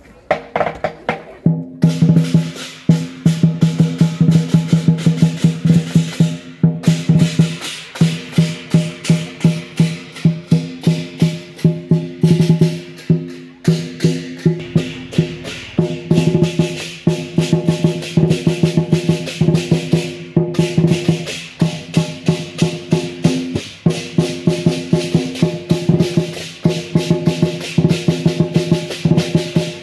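Lion dance percussion: a drum beaten in a fast, dense rhythm with a gong and cymbals ringing underneath, the run broken by a few abrupt cuts.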